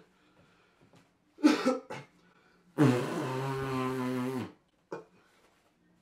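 A man with a head cold blowing his nose hard into a tissue: one long honking blow lasting under two seconds, with a shorter burst of breath about a second before it.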